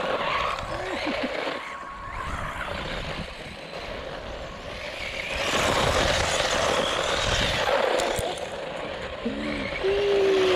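Electric 1/14-scale RC monster truck (HBX Duel) driving over loose gravel, its tyres crunching and throwing grit, loudest as it passes close by in the middle.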